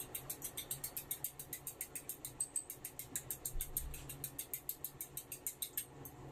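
Chopsticks beating eggs in a small ceramic bowl: a rapid, even clicking of the sticks against the bowl, about six clicks a second, which stops near the end.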